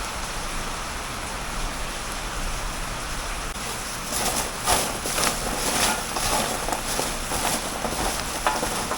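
Pork skin deep-frying in hot oil: a steady sizzle, with irregular crackling and popping starting about four seconds in.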